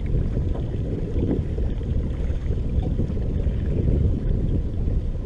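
Steady low wind rumble on the microphone of a camera mounted aboard a small fishing boat.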